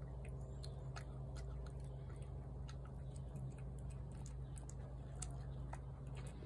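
Cat chewing and crunching food, a scatter of small irregular crunches over a steady low hum.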